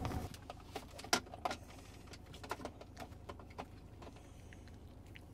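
Maltese puppy eating a treat, with scattered small crunches and clicks of chewing, a couple louder about a second in.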